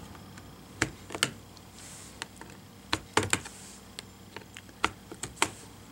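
Metal spudger prying at the seam between an HP Chromebook 14 G5's plastic keyboard assembly and its case: irregular sharp plastic clicks and ticks, with a faint scrape now and then.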